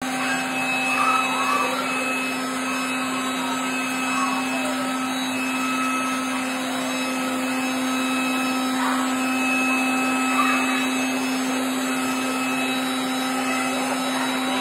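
Handheld leaf blower running steadily: an even rush of air over a constant motor hum.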